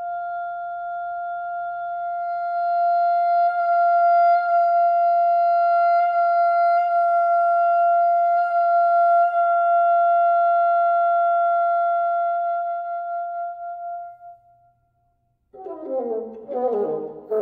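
Bassoon holding one high, nearly pure note for about fifteen seconds, with small regular flickers in the tone, then fading out. After a brief silence, a loud, full-toned bassoon passage with falling low notes begins near the end.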